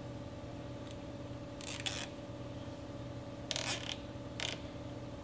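Nylon zip tie being pulled tight through its ratchet head in short zipping pulls: two just under two seconds in, a longer one about three and a half seconds in, and a short one soon after, over a steady low hum.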